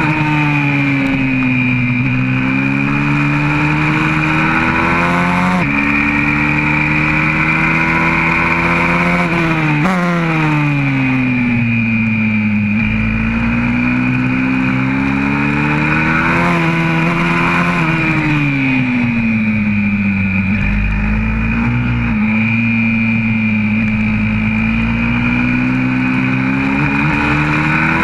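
YCF 125cc four-stroke pit bike engine at race pace, heard on board. Its pitch climbs, dips sharply at each gear change, and falls away twice as the bike slows for corners, around ten seconds in and again from about seventeen to twenty seconds in, before rising again near the end.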